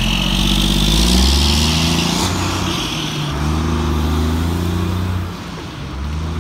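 Semi truck pulling past close by, its diesel engine running and pulling through changing engine notes, with a hiss over the first three seconds. The engine sound drops away about five seconds in.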